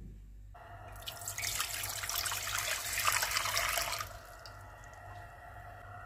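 Water pouring into a stainless steel saucepan for about three seconds, then stopping abruptly.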